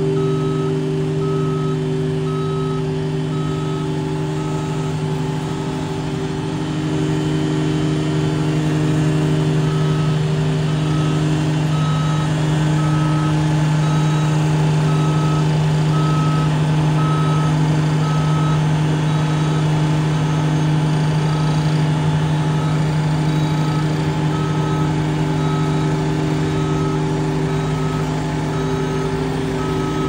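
JCB rough-terrain forklift's diesel engine running steadily, getting a little louder about seven seconds in, while its reversing alarm beeps at an even pace, roughly one and a half beeps a second.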